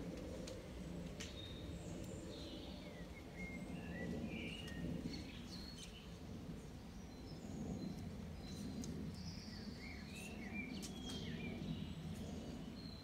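Small birds chirping and singing in short gliding notes over a steady low outdoor rumble, with a few faint sharp clicks.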